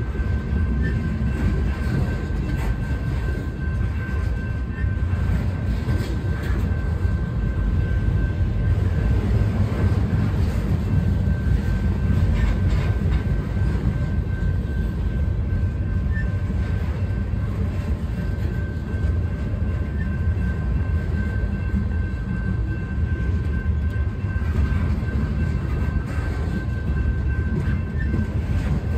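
Freight train of boxcars and flatcars rolling steadily past a grade crossing: a continuous low rumble of wheels on rail, with a steady high tone over it.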